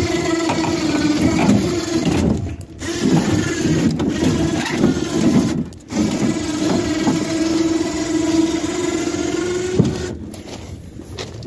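Electric winch motor whining steadily under load as it drags a dead riding lawnmower up ramps onto a pickup bed. It stops briefly twice and cuts off about ten seconds in.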